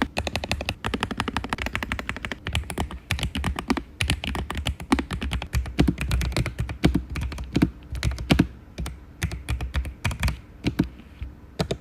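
Typing on a Lofree Flow low-profile mechanical keyboard: a fast, irregular run of key clacks that thins out near the end.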